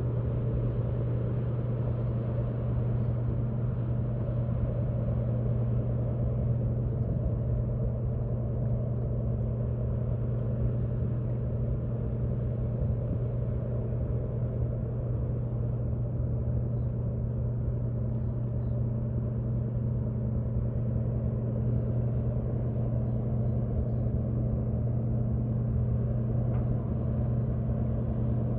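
Great Lakes freighter's engines running, a steady low drone with a constant hum that does not change.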